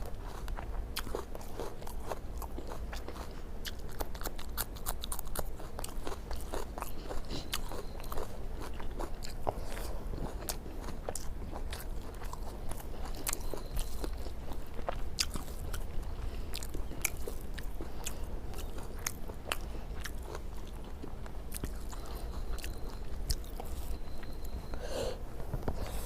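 Close-up chewing and mouth sounds of a person eating rice with fish and egg curry: a continuous, irregular run of small sharp clicks.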